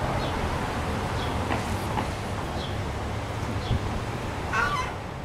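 Steady rumbling outdoor noise on a handheld microphone, with a few faint short high calls about a second apart and a louder call near the end.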